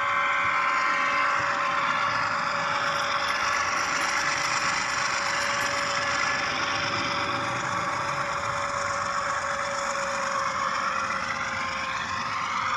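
A ScaleTrains HO-scale model of the CSXT #3194 diesel locomotive running on the layout, its onboard sound playing a steady diesel engine drone. A whine in the drone slowly rises and falls in pitch.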